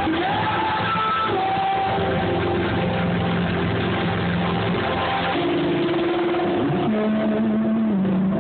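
Live band music from the audience: guitar and bass under a singer's long held notes that slide between pitches. The recording is poor, with no treble.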